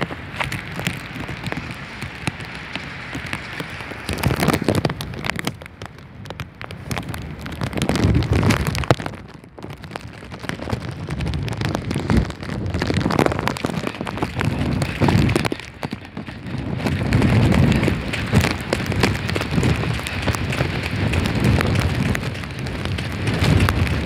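Heavy, wind-driven rain pelting steadily, with strong gusts of tropical-storm-force wind buffeting the microphone in deep surges every few seconds.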